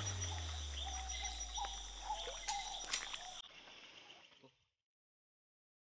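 Night outdoor ambience of animal calls and running water, with a few knocks from handling. It cuts off abruptly about three and a half seconds in and fades to complete silence, an edit in the soundtrack.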